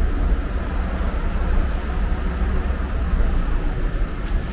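Steady low rumble of outdoor background noise, with a hiss above it and no distinct events.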